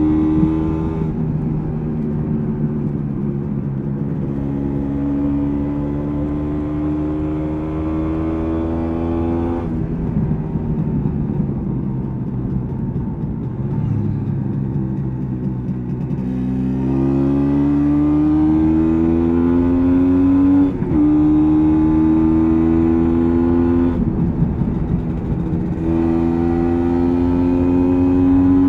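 A 1986 MZ ETZ 250's single-cylinder two-stroke engine, heard onboard while riding. Its pitch climbs steadily, drops sharply at each upshift, then climbs again. For several seconds in the middle it runs at lower, unsteady revs before pulling up through the gears once more.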